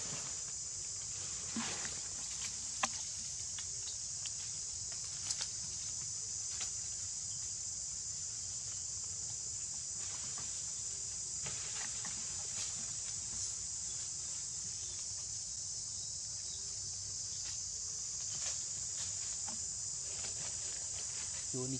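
Steady high-pitched insect chorus, with a few faint clicks.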